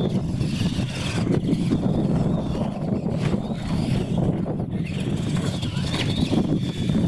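Radio-controlled monster trucks racing on a dirt track, their motors giving a faint whine that rises and falls in pitch over a steady low rumble.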